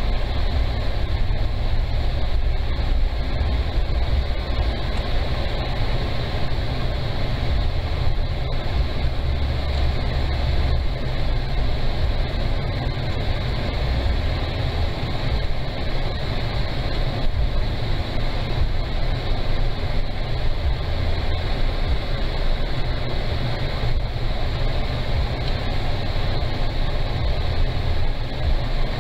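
Steady low rumble of a car driving slowly, heard from inside the cabin: engine and tyre noise, with a fainter hiss above.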